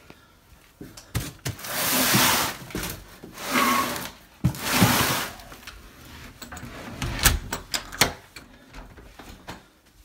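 A large cardboard shipping box being shoved and slid across a tile floor in three long scrapes, followed by several sharp knocks as it is bumped into place.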